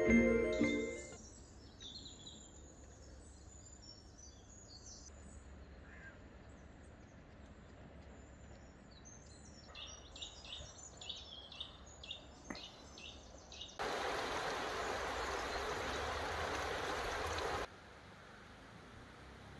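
Small birds chirping and calling against a quiet outdoor background, with music fading out in the first second. About 14 seconds in, a steady, louder rushing noise starts abruptly, lasts about four seconds and cuts off suddenly.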